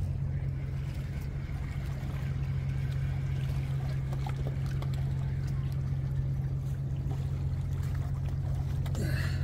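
A steady low engine drone, with small waves lapping and trickling among breakwater rocks.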